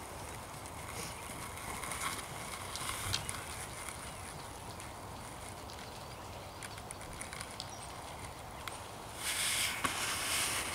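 Horse trotting on a soft arena surface, its hoofbeats faint scattered thuds and ticks under steady outdoor background noise. A brief louder hiss lasts about a second near the end.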